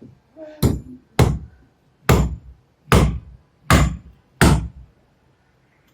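Carpenter's hammer striking six times, about one blow every three-quarters of a second, each a sharp knock with a short ring.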